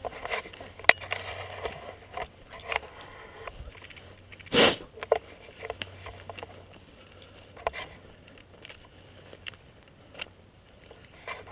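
Movement noise of a player pushing through weeds and brush: footsteps and rustling, scattered clicks and knocks from gear, and a short loud rush of brushing noise on the helmet-mounted camera near the middle.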